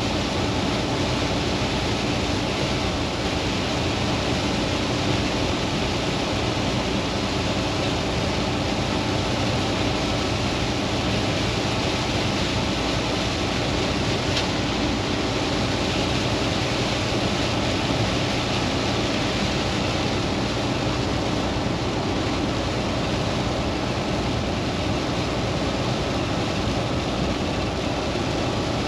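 Steady hiss of heavy rain and wet-road spray heard inside a Volvo semi-truck cab at highway speed, over the low, even drone of the engine.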